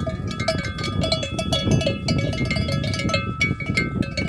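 Cattle bells clanking irregularly as the herd moves, several bells of different pitches ringing over one another.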